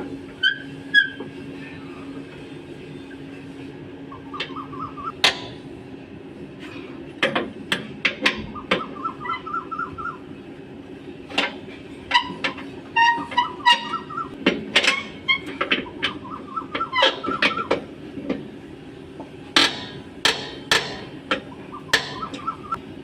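Irregular sharp knocks and taps, some in quick clusters, from work on a truck propeller shaft's cross (universal joint) and bearings. Short chirping bird calls come between them over a steady hum.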